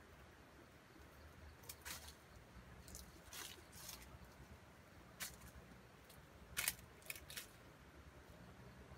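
Near silence with a low steady hum and a handful of short, faint clicks and rustles, the loudest pair about two-thirds of the way in.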